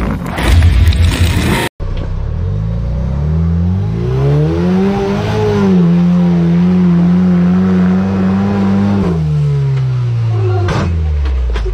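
A truck burnout in a tunnel, loud and rough with engine and tyre noise, cuts off suddenly a little under two seconds in. Then a lifted off-road pickup's engine climbs in revs over a few seconds, holds steady under load as the truck crawls up a steep rock chute, and drops back near the end.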